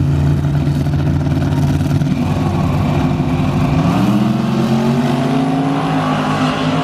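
A tuned Chevy pickup and a Camaro SS idling on the drag strip's start line, then launching about four seconds in, with the engine pitch rising as they accelerate away.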